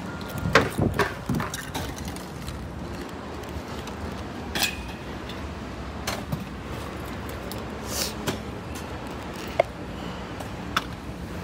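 Steady low outdoor rumble with a few sharp knocks and clinks scattered through it.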